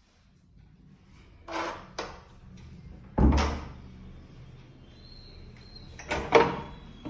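A wooden interior door being handled: a few sharp knocks and clunks, the loudest about three seconds in and two close together about six seconds in, over a low steady hum.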